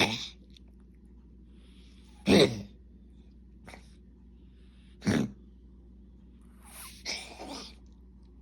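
A drawn-out coughing bout: single sharp coughs a few seconds apart, with the last one weaker and more drawn out.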